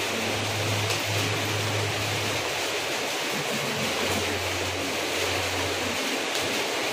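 Steady hiss of room noise. A low hum comes in twice.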